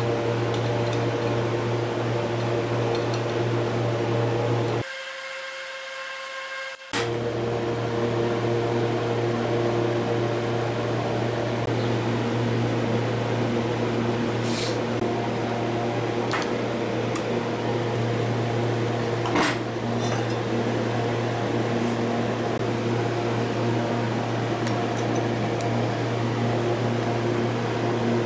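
A steady mechanical hum, as of a fan or motor running in the workshop, which drops out for about two seconds near the start. A few light metal clicks from hand tools worked on the old compressor motor's housing come through over it.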